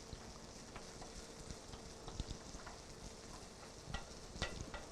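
Faint sizzle of diced onions sautéing in olive oil in a skillet, with a few light clicks of kitchen utensils.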